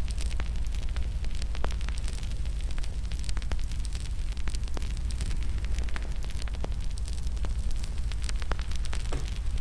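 Wood fire in a fireplace crackling: irregular sharp snaps and pops, several a second, over a steady low rumble.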